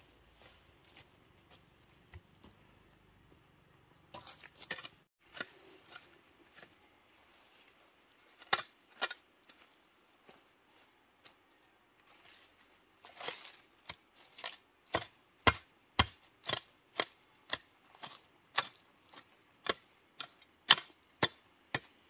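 A blade chopping with sharp, short strokes: a few scattered knocks at first, then a steady run of about two strokes a second through the second half.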